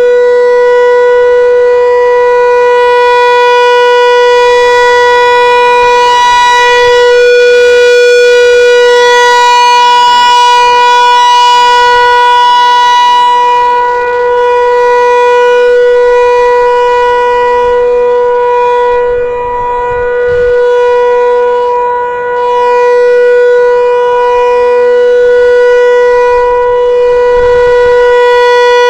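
Federal Signal 508 outdoor warning siren sounding a Full Alert test signal: one loud, steady, unwavering wail that dips briefly in level twice about twenty seconds in.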